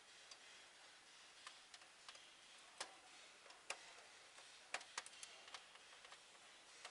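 Faint, irregular light clicks and taps of a screwdriver and wires being handled at a machine's electrical terminal block, about ten in all, several close together about five seconds in.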